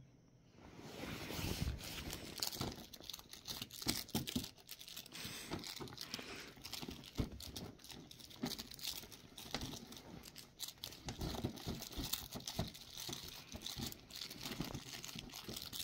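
Cats scrambling and pawing inside fabric pop-up play tunnels, the tunnel fabric rustling with a scatter of small scratches and taps, starting about a second in.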